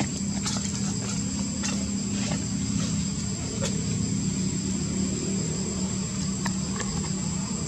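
A steady low hum, like a distant engine, under a continuous high-pitched insect drone, with a few faint clicks.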